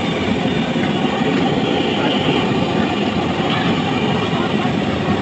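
Fritters deep-frying in a large iron kadhai of oil over a street-stall burner: a loud, steady, dense rush of bubbling oil and burner flame.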